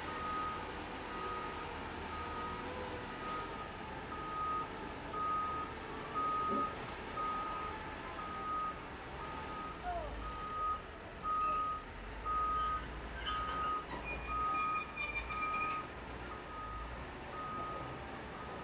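Dump truck's reversing alarm beeping steadily, about one beep every 0.8 seconds, over the rumble of its diesel engine as it backs up with a pup trailer in tow. In the second half the engine rumble swells in pulses, and a brief high-pitched squeal comes about two-thirds of the way through.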